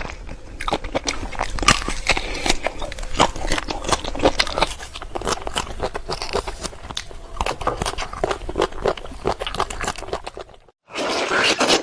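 Close-miked biting and chewing of crisp fresh fruit: many sharp, irregular crunches and wet clicks. Near the end it cuts to silence for a moment, then louder crunching starts again.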